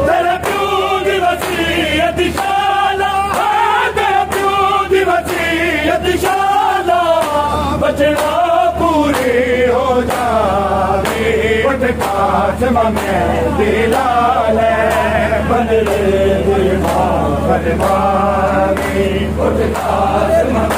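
Men's voices chanting a noha, a Shia lament, in long, wavering sung lines. Evenly spaced thumps of matam chest-beating run beneath.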